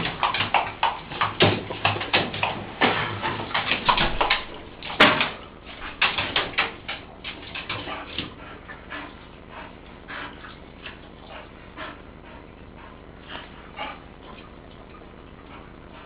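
Pit bull whimpering and whining in many short bursts, packed close together at first and thinning out over the second half, with one sharp click about five seconds in.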